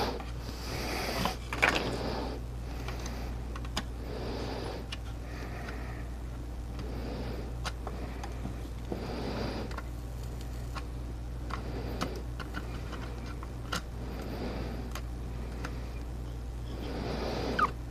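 Work-bench handling noises: scattered sharp clicks and brief rustling or rubbing sounds, each about a second long, over a steady low hum.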